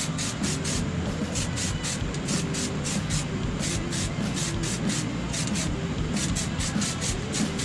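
Aerosol spray-paint can hissing in short repeated bursts, about two or three a second, as paint is sprayed onto a motorcycle wheel rim in quick passes.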